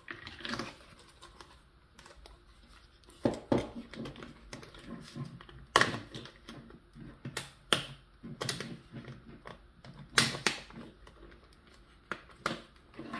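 Plastic toy track pieces clicking and clattering as they are handled and snapped together, a string of sharp irregular clicks and rattles.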